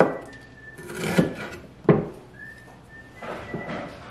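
Kitchen knife slicing vegetables on a wooden cutting board: a few irregular sharp knocks of the blade against the board, with softer cuts between.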